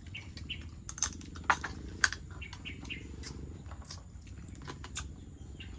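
Short high animal chirps mixed with scattered sharp clicks and knocks, two of them louder about a second and a half and two seconds in, over a steady low hum.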